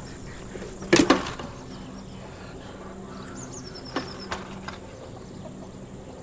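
A loud thump about a second in, then a few light clicks and a short run of quick, high, falling bird-like chirps, over a low steady hum.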